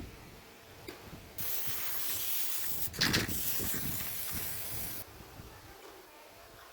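A steady spraying hiss that starts over a second in and cuts off sharply about three and a half seconds later, briefly louder in the middle.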